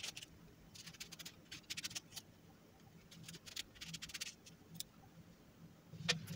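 Kitchen knife slicing lengthwise through an eggplant: faint, short crisp scrapes and crackles in small bunches, about a second apart.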